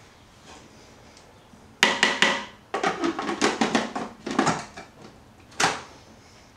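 Plastic food processor lid and feed-tube pusher being set back on the bowl and locked into place: a run of clattering clicks and knocks, with a last sharp click near the end.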